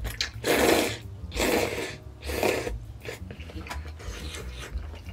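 Ramen noodles slurped in three long, loud pulls, then chewing with faint small clicks.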